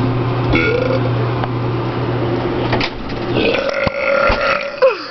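A person burping: one long, loud burp lasting nearly three seconds, then a second drawn-out, higher-pitched burp about a second later.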